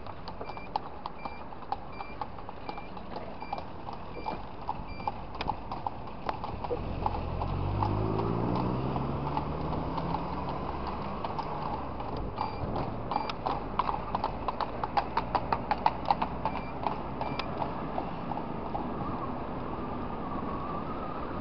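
A carriage horse's hooves clip-clopping on the street, loudest a little past the middle, mixed with the engine of the scooter following it. The scooter engine rises in pitch as it speeds up about a third of the way in.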